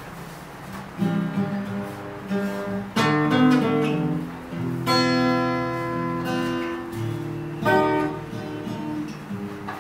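Acoustic guitar playing slow chords, a strum roughly every two seconds, each chord left to ring.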